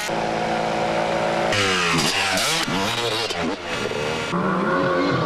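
Several small two-stroke engines whining and revving together, their pitch sweeping up and down in overlapping arcs. The mix changes abruptly about a second and a half in and again past four seconds.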